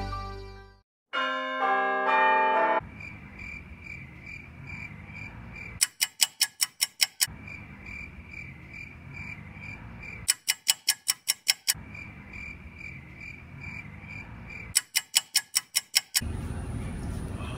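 A short melody of chime-like notes, then three bursts of about seven rapid, high-pitched beeps each, a few seconds apart, over a quiet room with a faint regular ticking.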